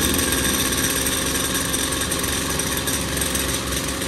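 Backpack brush cutter's small petrol engine running steadily at idle with the cutting head turning, although it should stay still without throttle: a fault to be traced to a snagging throttle cable, an idle speed set too high, or the clutch.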